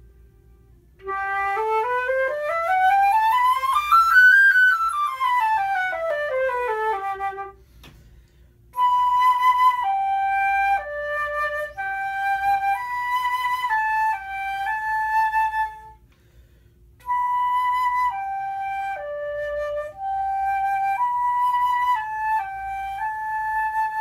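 Solo concert flute, a Powell 14-karat gold flute with a 14-karat gold P-cut headjoint with wings, played. First comes a quick scale up about two octaves and back down, then a short melodic phrase played twice with a brief pause between. The wings are meant to focus the tone, and the player hears it as a bit more focused.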